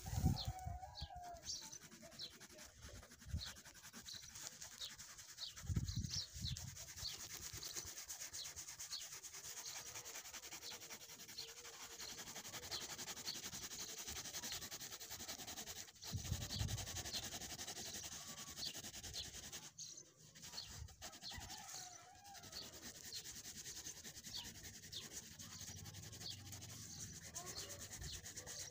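Colour pencil scratching on paper in short, even shading strokes, a little over one a second, with a few soft bumps as the paper and hand shift.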